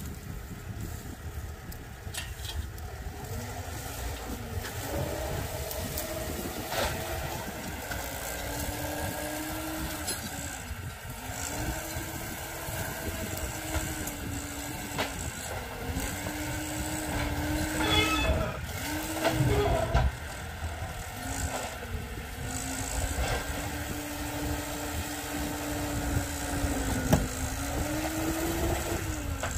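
A machine's engine working under changing load, with a steady whine whose pitch sags and recovers over and over. There is a low rumble underneath, and a few knocks come about two-thirds of the way through.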